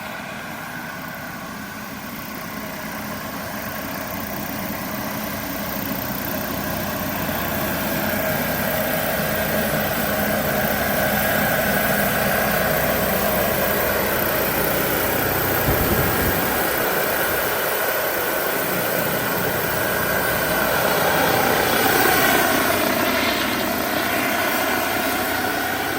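Radio-controlled scale Bell 212 helicopter's twin Jetcat PHT-3 XL turbine engines running with the rotor turning. The sound grows louder over the first several seconds, then holds steady, with a brief swell near the end.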